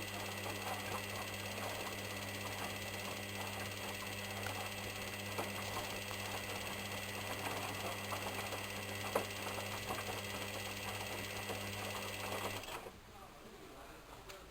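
Hoover Inter@ct washing machine running, a steady hum with light clicking and rattling, which cuts off suddenly about 13 seconds in.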